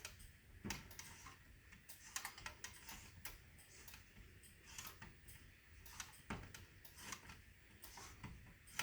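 Faint, irregular clicks and small metal scrapes of an Allen wrench working the reset lock of a Notifier NBG-10 fire alarm pull station.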